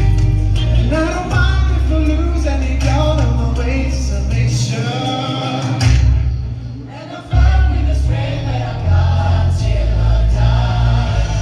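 A choir singing a song over an instrumental accompaniment with a strong, held bass line. The music thins out about six seconds in and comes back in suddenly about a second later.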